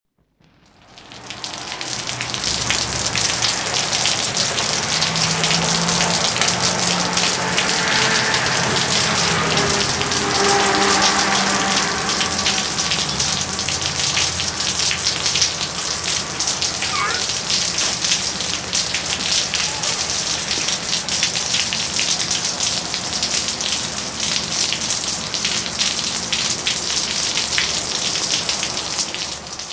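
Steady rain falling on a street, a dense hiss of many fine drop impacts. It fades in over the first two seconds and fades out at the end, with a faint low hum under it in the first half.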